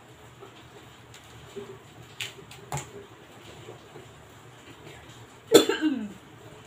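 A couple of sharp clicks as crab shell is cracked apart by hand, then, about five and a half seconds in, a short loud cough whose pitch falls away at the end.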